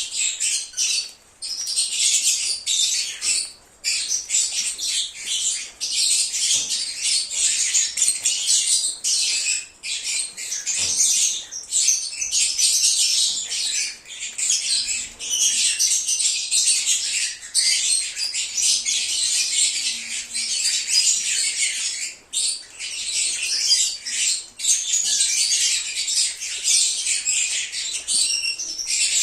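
A flock of lovebirds (Agapornis) chirping and squawking almost without pause, many shrill, high-pitched calls overlapping, with a few brief lulls.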